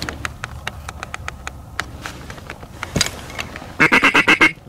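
A quick run of about eight duck quacks near the end, after a scatter of sharp clicks and one louder knock about three seconds in.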